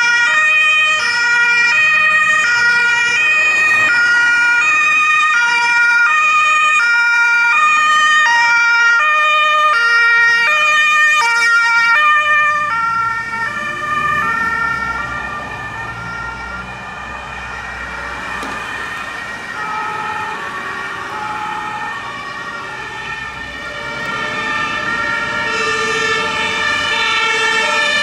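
German two-tone emergency-vehicle siren (Martinshorn) alternating steadily between a high and a low note, with vehicle engine and road noise under it. The siren grows fainter about halfway through and louder again near the end.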